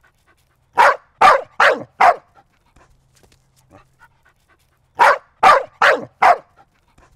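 A dog barking in two quick runs of four barks, about three seconds apart.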